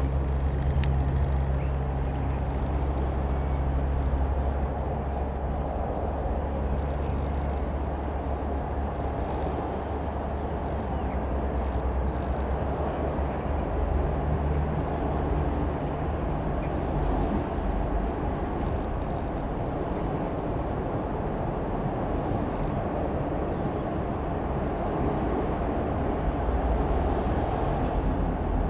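Single-engine light aircraft's piston engine droning steadily at a distance, a low even hum.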